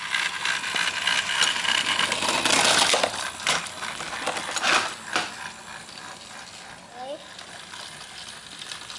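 Battery-powered TrackMaster Thomas toy engine running on plastic track, its motor and wheels clattering, with several sharp clicks and knocks in the first half before it goes quieter.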